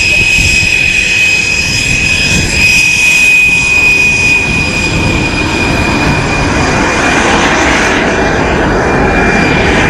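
Aero L-29 Delfín jet trainer's single Motorlet M-701 turbojet running during its takeoff: a steady high-pitched whine over a rushing rumble that swells in the last few seconds.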